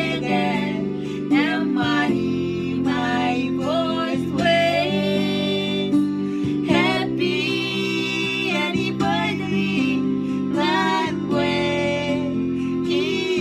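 A woman and a man singing a song in Marshallese, their voices wavering with vibrato, over sustained chords held on a small electronic keyboard.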